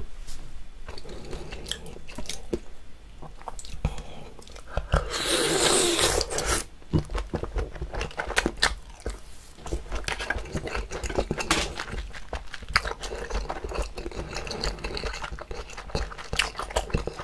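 Close-miked eating sounds: baby octopus in red pepper sauce bitten off a wooden skewer and chewed, wet and sticky, with many small clicks and smacks. About five seconds in comes a loud, noisy bite or slurp lasting over a second.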